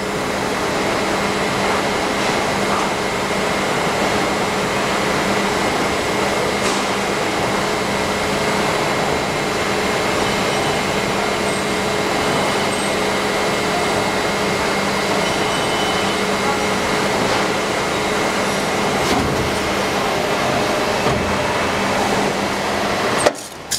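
Injection moulding machine running through a spoon-mould test shot: a steady hydraulic hum with a constant faint high whine. A sharp knock comes near the end.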